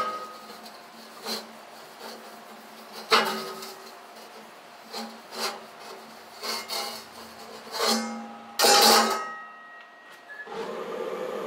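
Carbon steel wok knocking and scraping against the steel ring of a wok burner as it is tilted and turned, with a cloth rubbing over the metal between the knocks. There are several sharp metal knocks with a short ring, the loudest about nine seconds in. A steady buzzing hum starts shortly before the end.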